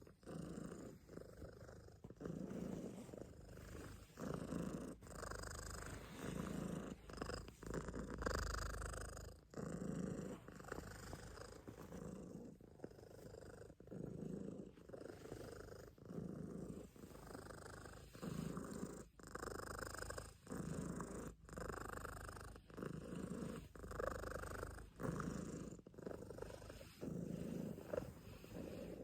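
Calico cat purring close up, the purr swelling and easing with each breath about every second and a half.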